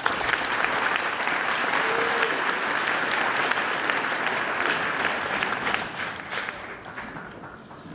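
Audience applauding in a gymnasium, a dense clapping that starts at once, holds for about five seconds and then dies away.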